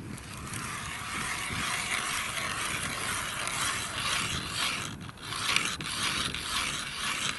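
Hand-cranked ice auger boring a hole through river ice: a steady scraping of the blades shaving ice as it turns, with a brief let-up about five seconds in.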